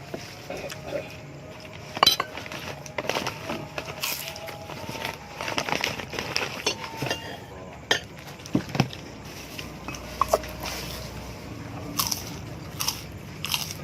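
Cutlery clinking and scraping against a plate during a meal, in a series of short sharp clicks.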